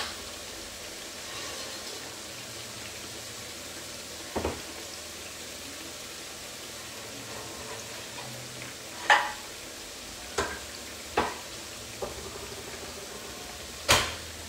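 Aubergine slices frying in oil in a pan, a steady sizzle, with a few sharp knocks and clicks scattered through it, the loudest about nine seconds in and just before the end.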